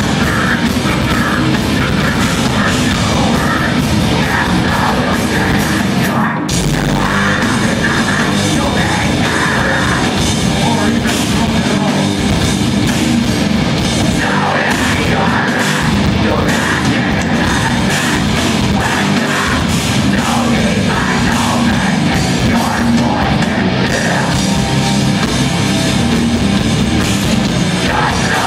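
Heavy rock band playing live at high volume: electric guitars, bass and drum kit, heard from the floor of the hall. The music drops out for a split second about six seconds in, then carries on.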